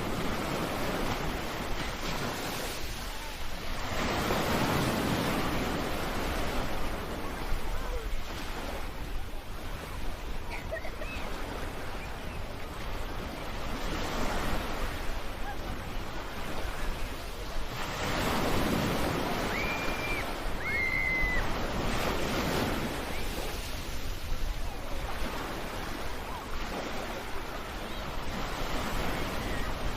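Ocean waves breaking and washing ashore, swelling and easing every several seconds. A few short high calls sound briefly near the middle.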